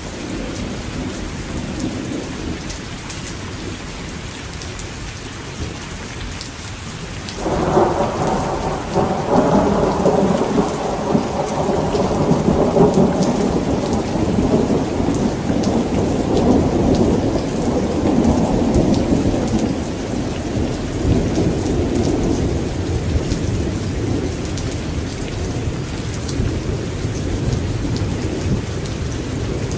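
Steady rain with a thunderclap that breaks suddenly about seven seconds in. The thunder rolls on for some twelve seconds, then fades back under the rain.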